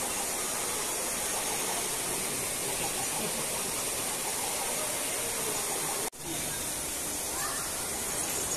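Steady rushing, hissing noise that cuts out sharply for a moment about six seconds in.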